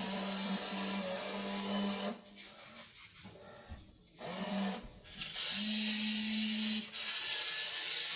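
Small electric motors of a WLtoys RC excavator whirring in bursts, starting and stopping as the arm and tracks are worked, with a lull of about three seconds midway.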